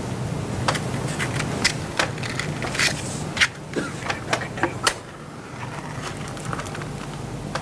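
Scattered sharp clicks and crackles over a steady low hum and hiss, the noise of an old television soundtrack; the clicks stop about five seconds in, leaving the hum.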